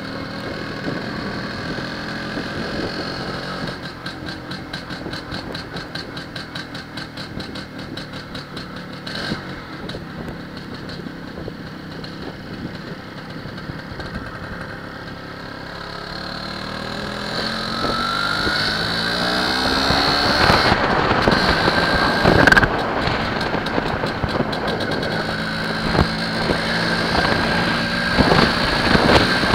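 MZ ETZ 301's single-cylinder two-stroke engine running as the motorcycle rides at low speed, then getting louder and rising in pitch from about halfway as the bike speeds up.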